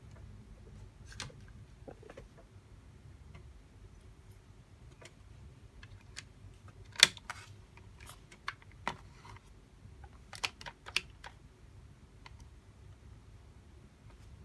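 Light clicks and knocks of small plastic parts being handled, scattered and irregular, with the sharpest click about halfway through and a quick run of them shortly after.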